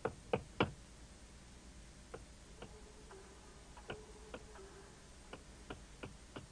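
Knocking on a wall: three quick knocks at the start, then fainter knocks in ones and twos at uneven gaps, as someone raps along the walls searching for something hidden.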